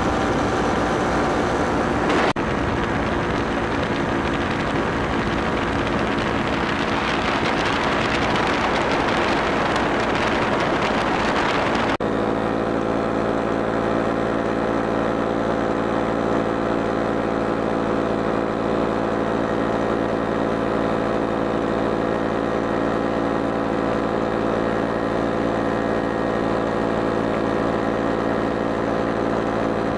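Ultralight aircraft engine and propeller running steadily in flight, with wind rush on the microphone that swells and then cuts off abruptly about twelve seconds in. After that the engine's steady hum is left on its own. A single sharp click comes about two seconds in.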